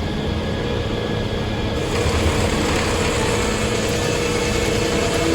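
Circular sawmill running steadily with a low rumble and a steady hum. About two seconds in, a louder, higher hiss joins and holds.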